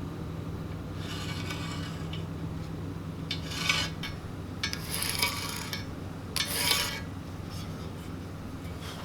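Short bursts of metal rasping and scraping on the steel tank, four times, over a steady low hum.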